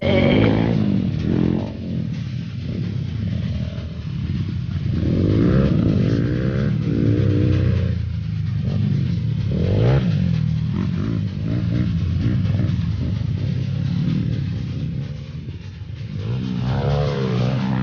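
Dirt bike engine running and revving, its pitch rising and falling several times as the throttle is worked.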